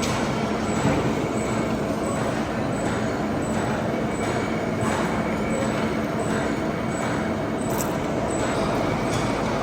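Workshop machine tool running steadily with a dense mechanical noise, a few faint steady whines and faint regular ticks a little more than once a second.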